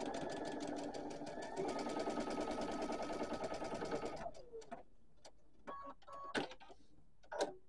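Sewing machine stitching a quarter-inch seam in a steady run of rapid needle strokes, picking up speed about a second and a half in and stopping after about four seconds. A few light clicks follow.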